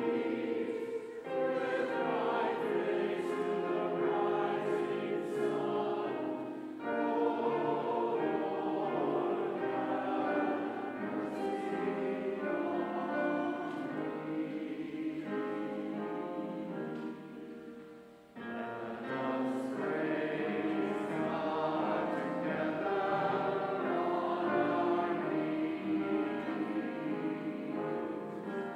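A choir singing a hymn in sustained phrases, with brief breaks between phrases, the longest about two-thirds of the way through.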